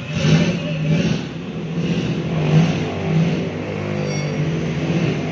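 Toyota Kijang engine running at low revs, with a few brief surges of throttle, as the car reverses slowly. It is breathing through its old, rusted exhaust.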